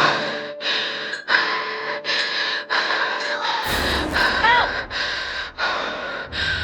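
A person gasping and panting in rapid, heavy breaths, about three every two seconds, over tense music. A low rumbling drone joins about halfway through.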